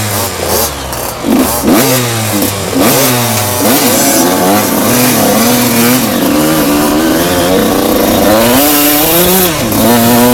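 Enduro motorcycle engine revving up and dropping back over and over as it is throttled and shifted, its pitch rising and falling in quick swings. A few sharp knocks and clatters come in the first three seconds.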